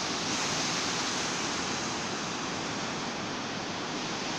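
Steady rush of water, a swollen river current meeting the sea surf, with no breaks or swells in level.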